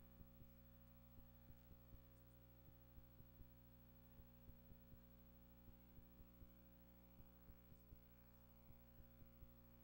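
Near silence: a faint steady electrical hum with faint, irregular clicks.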